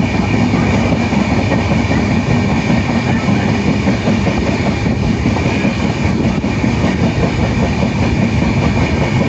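A train running along the track, a loud, steady noise of wheels on rail with a faint high steady tone above it.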